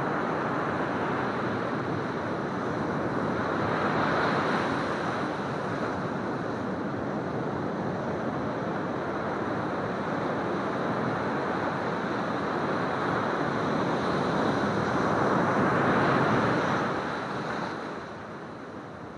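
Pacific Ocean surf breaking and washing up a sandy beach around rocks as a steady rushing noise. It swells about four seconds in and again around sixteen seconds as waves break, then eases off near the end as the wash recedes.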